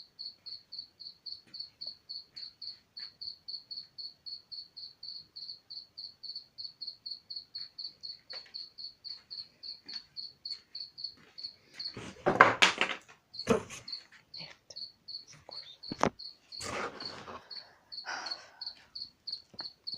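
A cricket chirping steadily indoors, a short high-pitched chirp about four times a second, hard to locate. About twelve seconds in, loud rustling and knocking cuts across it, with a sharp click a few seconds later.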